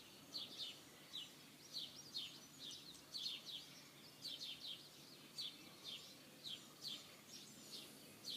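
Small birds chirping, faint: short high chirps that drop in pitch, repeated steadily two or three times a second.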